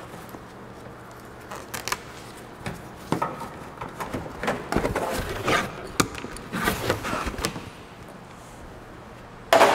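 Plastic push clips being pried out of an under-car splash cover: scattered clicks, snaps and scrapes of plastic. A louder burst of noise starts just before the end.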